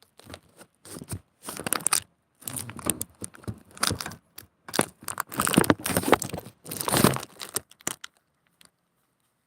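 Irregular bursts of rustling, crinkling noise, stopping about eight seconds in.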